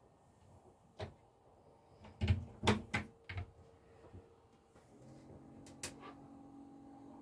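Knocks and clicks of handling inside a small boat cabin: one about a second in, a cluster of louder ones about two to three and a half seconds in, and another near the end. From about five seconds in, a steady low hum sets in beneath them.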